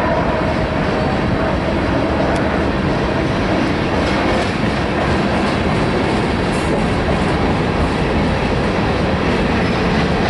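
Freight train cars, autoracks and boxcars, rolling steadily past at close range: continuous noise of steel wheels on the rails with clicking over the rail joints.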